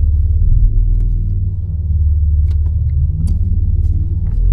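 BMW G80 M3 Competition's twin-turbo straight-six heard from inside the cabin: a low, steady engine rumble at low revs, with the pitch rising a little near the end.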